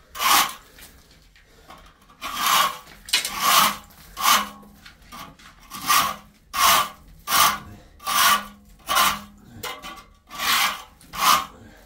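Repeated rasping, scraping strokes, about one a second, each under half a second long, like a hand tool being drawn over a hard surface.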